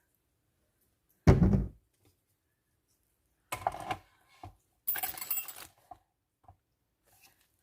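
Kitchen handling noises: a heavy thump about a second in, then a couple of short clatters and a longer rustling clatter near the middle.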